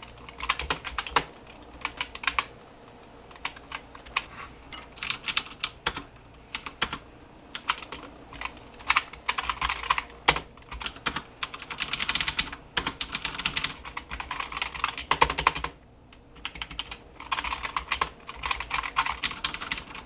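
Typing in bursts of fast keystroke clicks with short pauses, in turn on a Masione half-mechanical membrane keyboard and on a mechanical keyboard with Cherry MX Blue switches. The two sound quite different; on the half-mechanical board the sound comes as the key springs back up, not as it goes down.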